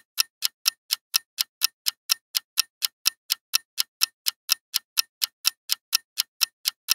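Clock-style ticking sound effect counting down a quiz timer, fast and even at about four ticks a second.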